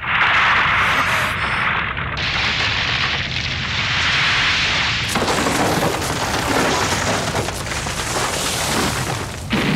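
Animated sound effect of a giant sword emerging: a deep, steady rumble under a loud rushing noise that starts suddenly and grows brighter about two seconds in and again about five seconds in.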